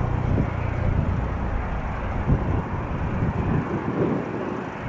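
Airbus Helicopters H145 flying past: steady rotor and turbine noise.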